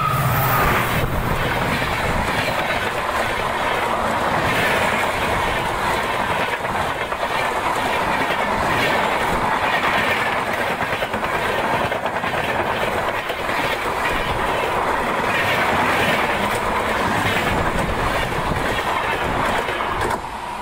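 Train passing at speed, over 90 km/h: a steady, loud rush of wheels on rail with a clickety-clack over the rail joints. The last note of its horn fades in the first moment, and the noise drops off suddenly about twenty seconds in as the train finishes passing.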